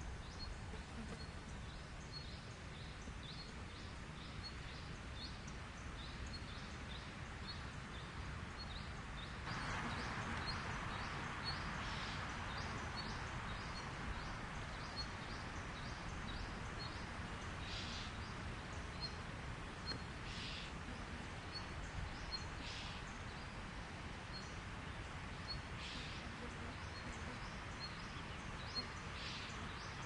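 Outdoor natural ambience: a short high chirp repeating about every half second over a low rumble. A steady hiss comes in about a third of the way through, with a few brief rasps later on.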